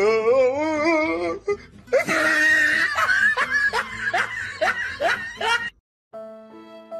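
A person laughing hard: a long wavering cry of laughter, then loud breathy bursts of a few a second that break off suddenly near the end. Soft music with held notes starts just after.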